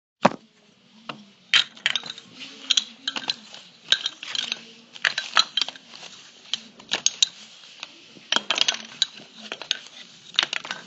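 Irregular clatter of sharp clinks and knocks from small hard objects being struck together, made as homemade sound effects, over a faint low hum.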